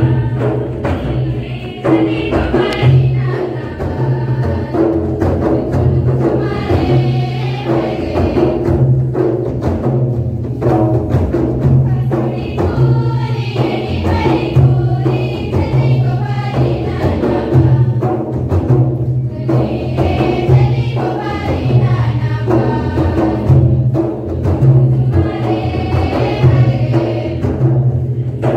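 Karam dance music from Jharkhand: a group of voices sings a repeated phrase that comes back about every six seconds over continuous mandar drumming.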